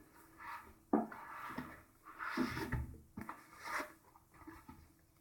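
Packaging being handled while unboxing a power supply: several short rustling, sliding swishes of cardboard and wrapping, with a sharp knock about a second in and a dull bump halfway through.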